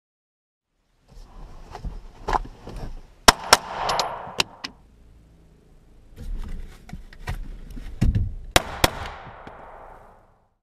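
Pistol shots fired from inside a vehicle's cab out of the driver's window: a quick pair about three seconds in and another pair near the end, each pair followed by a ringing echo, with lighter clicks and rustling of movement between.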